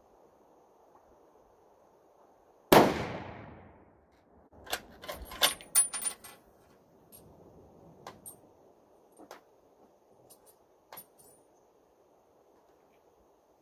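.270 hunting rifle fired once about three seconds in, the shot ringing out and dying away over a second or so. A run of sharp metallic clicks and clacks follows as the rifle is handled, then a few scattered clicks.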